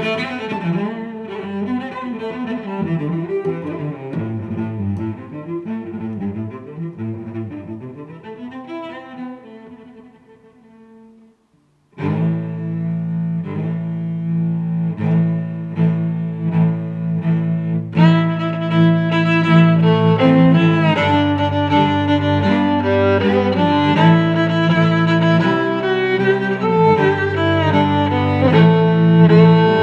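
Background music led by cello or bowed strings, with sustained notes. It fades out about ten seconds in, breaks off briefly and comes back louder, with more strings joining a few seconds later.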